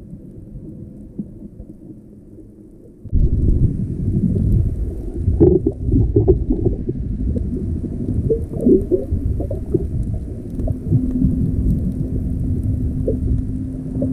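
Muffled underwater rumble of water moving around a camera's waterproof housing while snorkeling. It jumps much louder about three seconds in, has a few bumps, and a steady low hum appears in the second half.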